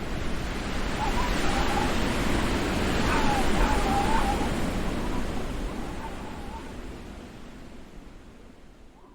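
Steady rushing wind noise that fades out over the last few seconds, with a faint, high, wavering voice-like sound for a few seconds near the start.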